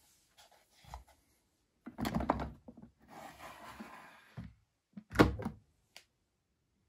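Several thuds and knocks with a scraping slide in between, the loudest thud about five seconds in: hands working parts of a Siemens iQ700 front-loading washing machine.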